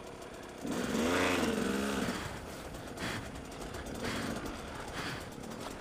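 Dirt bike engine running at low revs, revved once about half a second in, its pitch rising and falling over about a second and a half, then settling back; a few short knocks follow.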